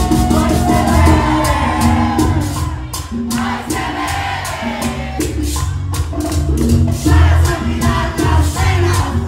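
Live bachata band playing loudly, with male singers singing over bass and a steady beat of high, shaken percussion.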